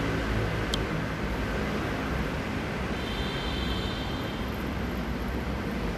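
Steady low rumble of city and rail noise on an open elevated metro platform. A brief sharp click comes just under a second in, and faint high tones sound for about a second and a half near the middle.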